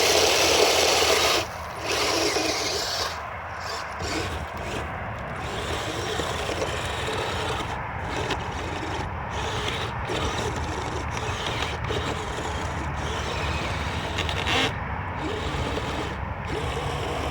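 Kyosho Blizzard RC snowcat driving in snow, its twin electric motors and tracks running with a steady mechanical noise that is louder for the first second or so.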